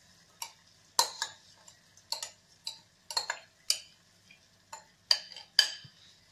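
A metal spoon clinking and scraping against a bowl and a stainless steel kadhai as soaked rice is scooped into the pan: a string of sharp, irregular clicks, the loudest about a second in and twice near the end.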